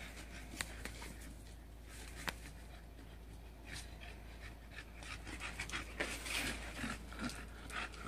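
A dog panting and sniffing, faint, with a few sharp clicks; the quick short breaths come thicker over the last three seconds.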